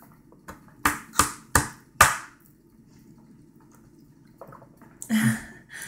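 A baby slapping her hand on a plastic high-chair tray scattered with avocado pieces: four sharp smacks in quick succession about a second in.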